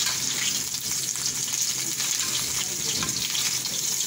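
Parboiled pork chunks sizzling as they fry in their own fat in an aluminium kadai, with a steady frying hiss and a metal spoon stirring and scraping through the meat.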